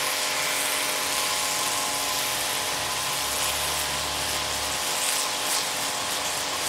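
Small electric pressure washer running continuously: a steady motor whine over the hiss of the high-pressure water jet striking a muddy concrete road.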